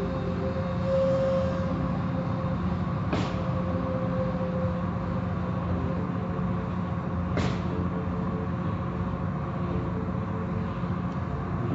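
Automatic car-wash tunnel heard from inside a car: steady hum of the wash machinery with water and foam spraying against the car. Two brief sharp sounds come about four seconds apart.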